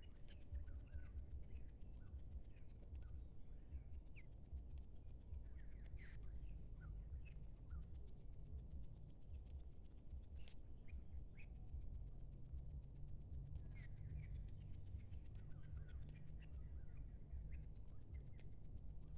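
Ducklings giving faint, scattered short peeps over an insect's high pulsed trill that starts and stops in bouts of a few seconds, with a steady low rumble underneath.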